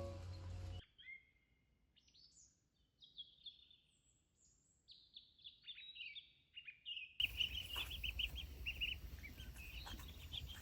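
Ducklings peeping: short falling chirps, faint at first, then a quicker run of peeps over a rise in background noise about seven seconds in.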